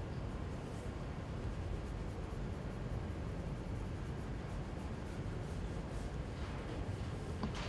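Pen scratching across paper in quick sketching strokes, with a cluster of louder strokes near the end, over a steady low background hum.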